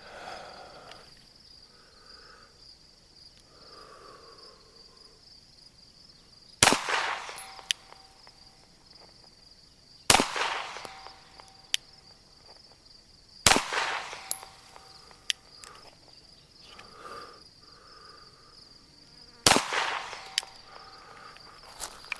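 Four single 9mm shots from a Glock 34 pistol, fired slowly several seconds apart, each with a short ringing echo. An insect chirrs steadily behind them.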